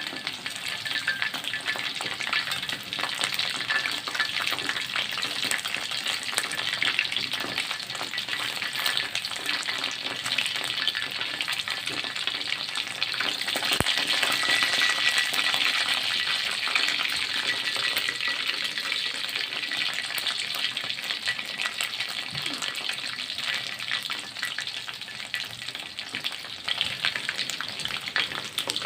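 Food frying in hot oil: a dense, steady sizzle full of fine crackles, a little louder around the middle.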